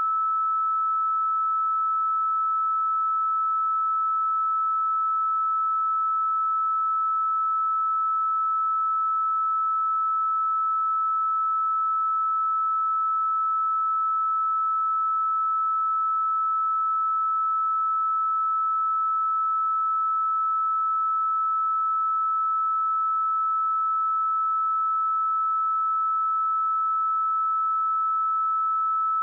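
A single pure sine-wave test tone at 1307 Hz, held steady at one pitch and constant loudness without a break.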